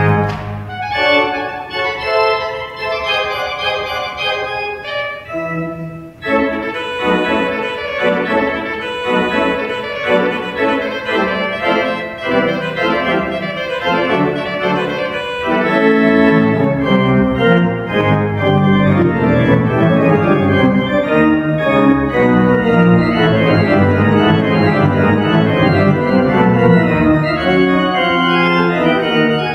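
Three-manual, 40-rank Schantz pipe organ playing a fast passage of many voices at once, with pedal notes underneath. The sound drops off briefly about six seconds in, then picks up again and grows fuller and louder from about halfway.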